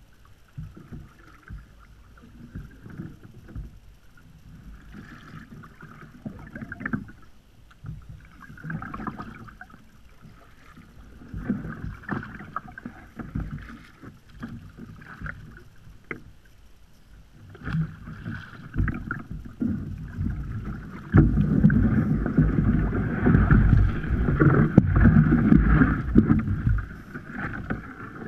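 Kayak paddling: a double-bladed paddle dipping and splashing in uneven strokes, water dripping off the blades. A louder low rushing comes in about three quarters of the way through.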